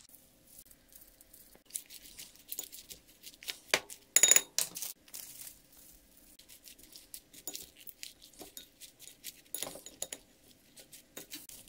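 A utensil working a salad of spinach leaves in a glass bowl: scattered taps, scrapes and leaf rustles. A sharp ringing clink of the utensil against the glass comes about four seconds in, and a lighter one near the end.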